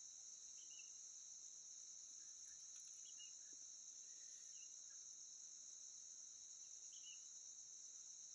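Faint, steady high-pitched insect chorus, a continuous shrill buzz, with a few short chirps scattered through it.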